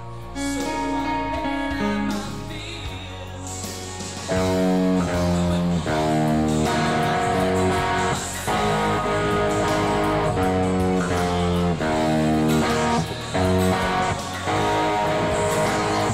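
Solid-body electric guitar playing a melodic lead line of held notes, louder from about four seconds in, over a steady low accompaniment.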